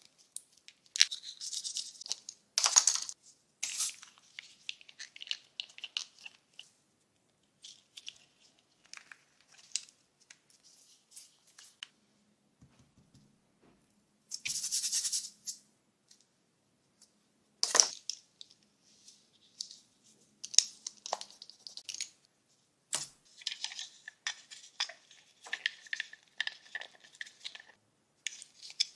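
Glitter slime being squished and pulled by hand in a plastic mould: irregular sticky crackling and tearing sounds, with a few sharp clicks and a short hissy burst in the middle.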